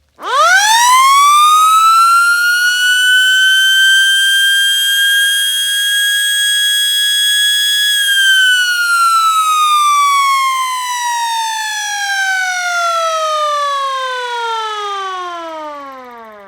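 FS 28H outdoor warning siren sounding a short alert for its weekly test: it winds up to a steady high wail within about two seconds and holds it, then about eight seconds in it begins winding down, its pitch falling slowly until it nearly dies away.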